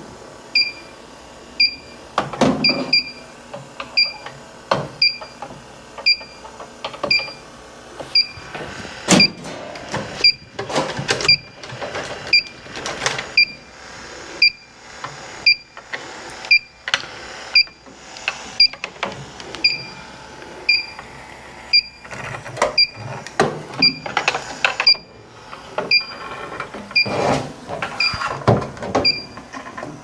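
A short electronic beep repeats steadily about once a second, with irregular knocks, clicks and rustles of tools and parts being handled.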